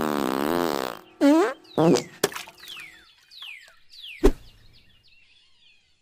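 Cartoon fart sound effects: a long, loud, wobbling fart in the first second, then two shorter ones. Falling whistles follow, then a sharp thump about four seconds in, with faint bird chirps behind.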